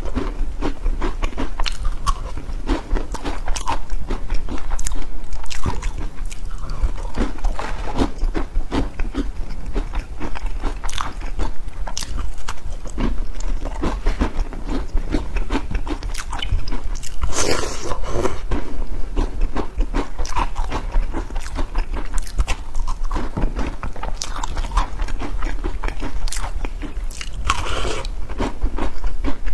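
Close-up eating sounds: crunchy bites and chewing of a crispy black-sesame pastry dipped in milk. The noises are louder a little past halfway and again near the end, over a steady low hum.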